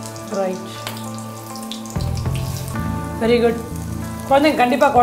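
A stuffed bread roll deep-frying in hot oil in a non-stick kadai, giving a steady sizzle and hiss. Background music runs underneath, and a voice comes in briefly twice in the second half.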